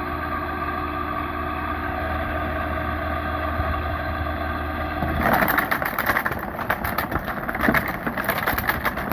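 Old window air conditioner running with a steady hum of several tones. About five seconds in the hum gives way suddenly to a louder, rough rattling and crackling that goes on to the end.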